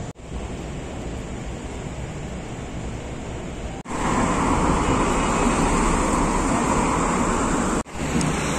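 Steady city traffic noise: a quieter, even rumble for the first four seconds, then a sudden change to louder street-level traffic of cars on a busy multi-lane road, with a brief cut again near the end.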